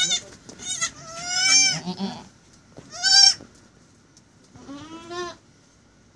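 Goat kids bleating: several short, high, wavering calls in the first three and a half seconds, then a lower-pitched bleat near the end.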